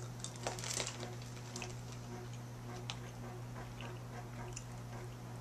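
A person chewing candy corn: faint mouth clicks and smacks, busiest about half a second to a second in, over a steady low hum.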